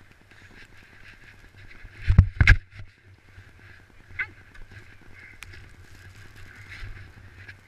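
Snowboard scraping and sliding over packed snow, with two loud knocks close together about two seconds in and a smaller click a couple of seconds later.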